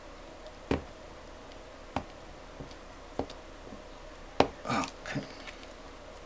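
Hands handling an LCD panel while peeling tape off its edge: a handful of sharp separate clicks and taps, the loudest a little over four seconds in, followed by a short rustle.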